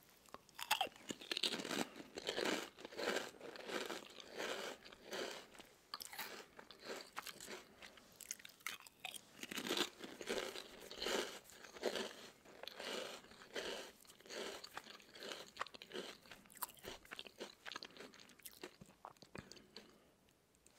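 A man crunching and chewing crisp Lay's potato-and-yam chips close to a microphone: a long run of sharp, crackly crunches from bite after bite, quietening near the end.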